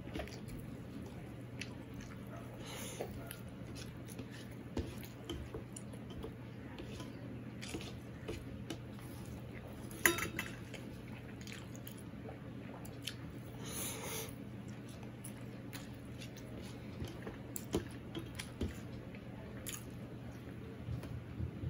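Fingers working mashed cauliflower-leaf paste on a stainless steel plate, with scattered small clicks and scrapes of fingertips against the metal and one sharper clink about ten seconds in. A steady low hum runs underneath.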